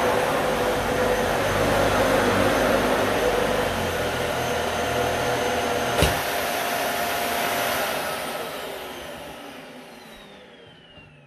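Dyson Ball Multi Floor 2 upright vacuum running on carpet. About six seconds in there is a sharp thump, typical of this model's stand lever being set back. Over the last few seconds the motor winds down with a falling whine as it is switched off.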